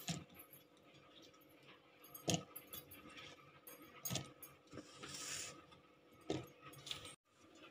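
Peeled small onions dropped by hand into a stainless-steel mixer jar: about half a dozen faint, scattered knocks and clinks against the jar.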